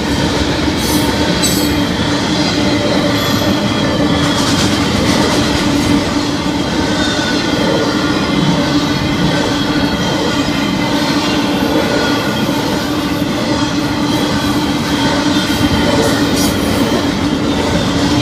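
Freight cars of a long train rolling past: a steady, loud rumble of steel wheels on rail, with faint high wheel squeal over it.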